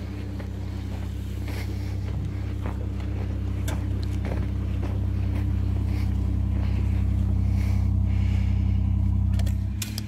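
A vehicle engine idling while it warms up in the cold: a steady low hum that gradually gets louder and cuts off abruptly near the end. A few faint knocks and clicks sound over it.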